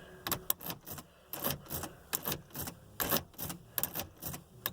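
Car key being pushed into and pulled out of the ignition cylinder again and again, a quick series of sharp metallic clicks and key-ring rattles, about three a second. This is the key-cycling step of Nissan remote programming that puts the car into programming mode.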